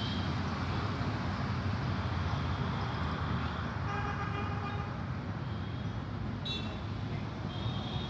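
Steady road-traffic rumble, with a brief vehicle horn toot about four seconds in.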